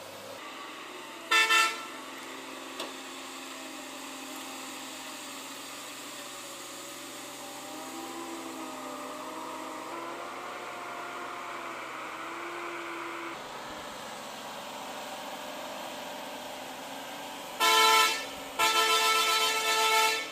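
Lorry horn sounding: two short blasts about a second in, then near the end a short blast followed by a longer one of about a second and a half. Between the blasts only a faint steady background with a low wavering hum.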